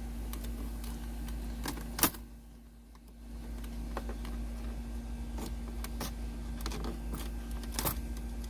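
Plastic dashboard trim being pried loose, its clips and the prying tool making scattered clicks, with one sharp snap about two seconds in, over a steady low hum.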